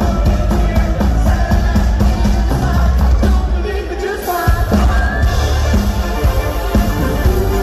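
Live band playing upbeat pop-rock over a PA, with drums, electric guitars, keyboard and singing, to a steady beat. The bass and kick drum drop out for about a second halfway through, then come back in sharply.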